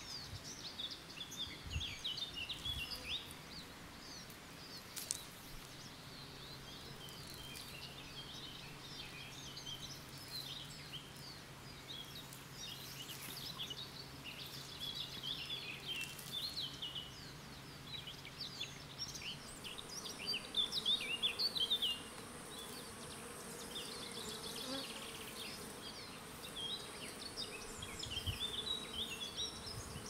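Birds singing, many quick overlapping chirps and trills, with a faint steady low hum beneath them for a while. About twenty seconds in, the steady buzzing of honeybees flying at a hive entrance joins the birdsong, loudest for a couple of seconds just after it starts.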